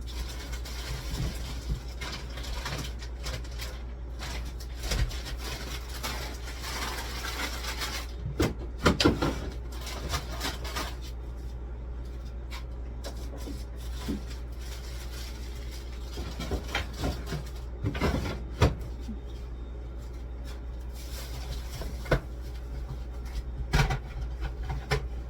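Scattered knocks and clatters of food containers and fridge or freezer shelves being moved and handled, over a steady low hum.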